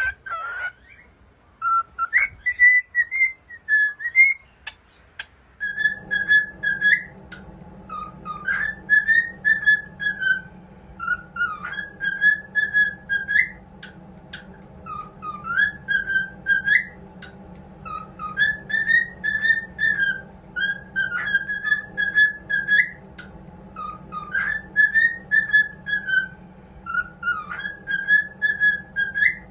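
Pet cockatiels whistling a tune: short rising and falling whistled phrases, repeated again and again. From about six seconds in, a steady low hum runs underneath.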